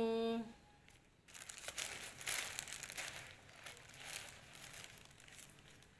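A thin black plastic bag crinkling and rustling as a hand rummages through it. It starts about a second in and goes on in uneven crackly rustles for several seconds.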